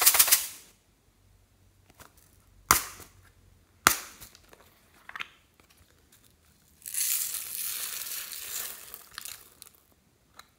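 Hard plastic bead case snapping open, with a few sharp clicks of its lid and clasp, then a couple of seconds of steady high rattling hiss as beads and glitter pour out of its compartments onto the slime.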